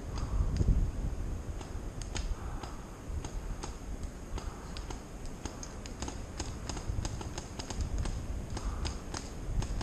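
Paintball markers firing scattered single shots at a distance: sharp pops at irregular intervals, over a low rumble of wind or movement on the action camera's microphone.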